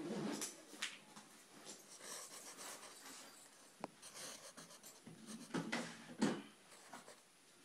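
Pencil scratching on paper in short, uneven sketching strokes, with a few sharper taps in between.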